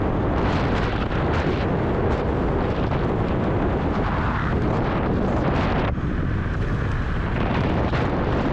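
Wind buffeting a GoPro's microphone while riding a Dualtron Thunder electric scooter: a loud, steady rush that eases briefly about six seconds in.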